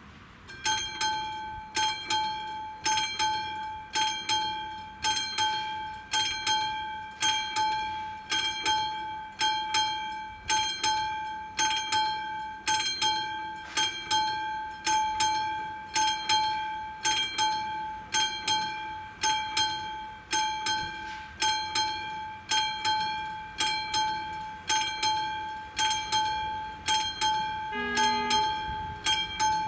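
Level-crossing warning bell at an AŽD 71 railway crossing, starting about half a second in and then striking rapidly and evenly, each ringing strike fading before the next: the crossing is warning of an approaching train.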